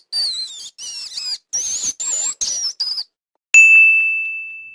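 Rat squeaking: a quick series of short, high squeaks that bend in pitch, lasting about three seconds. About three and a half seconds in, a single bright ding rings out and slowly fades.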